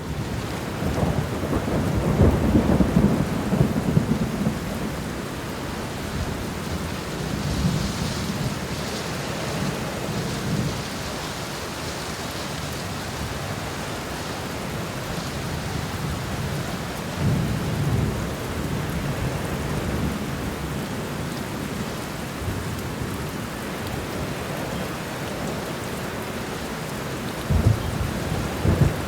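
Steady heavy rain with rolling thunder: a long rumble in the first few seconds, another about two-thirds of the way through, and a sharper, louder crack near the end.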